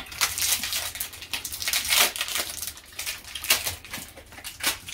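A lollipop's wrapper being crinkled and torn open in irregular crackles.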